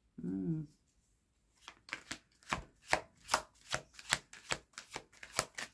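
A deck of tarot cards being shuffled by hand, the cards slapping together in quick, even strokes about five a second for several seconds. It is preceded by a brief hum of a voice.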